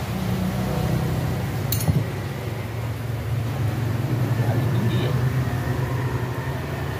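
A steady low rumble from a running engine, with a sharp click about two seconds in and a shorter, lighter click about five seconds in.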